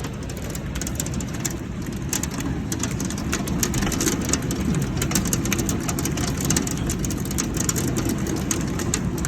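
Heavy storm rain pouring in wind: a steady low rumble with a dense patter of sharp strikes.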